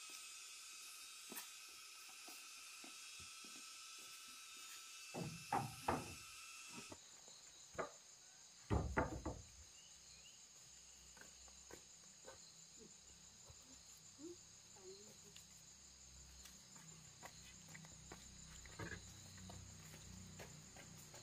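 Insects calling steadily, the chorus changing pitch abruptly about seven seconds in, with a few dull knocks near the middle and scattered small clicks.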